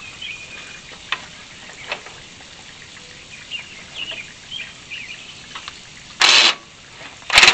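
Cordless impact wrench hammering in two short bursts near the end, loosening an alternator mounting bolt on a Chrysler slant-six engine.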